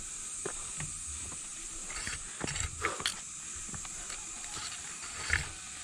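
Scattered scuffs and knocks of footsteps and a mountain bike being pushed up a slippery dirt trail, with a few clicks and rattles from the bike. A cluster comes in the middle and a louder knock near the end, over a steady high hiss.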